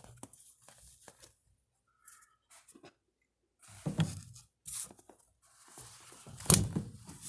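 Floor carpet and insulation padding rustling and tearing as they are pulled aside by hand, in several separate scrapes with short quiet gaps between them. The loudest come about four seconds in and near the end.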